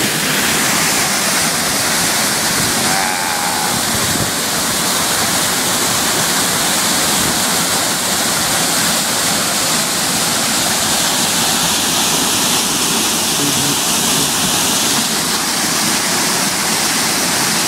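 Waterfall pouring into a rocky plunge pool: a loud, steady, even rush of falling and churning water.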